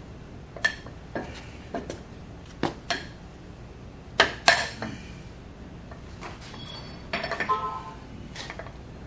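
Steel spindle parts and hand tools clinking and knocking against a steel workbench and vise as they are handled: a string of separate clanks, the loudest pair about four and a half seconds in, and a short rattle about seven seconds in.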